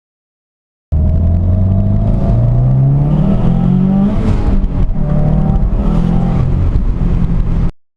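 Subaru WRX STI (VAB) turbocharged boxer engine pulling under boost, its revs climbing, dropping briefly about four seconds in, then climbing again. This is the stretch in which the car's unexplained noise under boost occurs. The sound starts about a second in and cuts off abruptly near the end.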